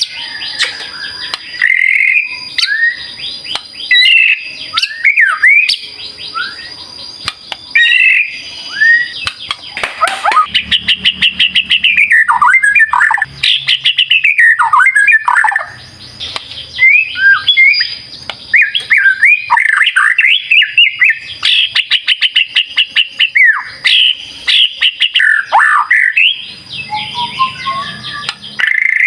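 White-rumped shama (murai batu) singing a loud, varied song of rapid whistles, sharp chirps and pitch glides in quick phrases with brief pauses. It is the energetic 'gacor' song used as bait audio to provoke other birds into singing.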